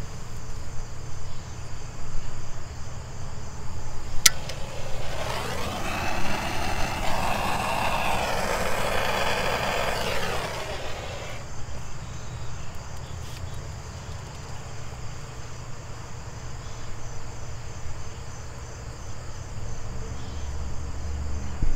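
A single sharp click, then a handheld propane torch's flame hissing steadily for about six seconds before it cuts off abruptly. Behind it are a constant low hum and crickets chirping.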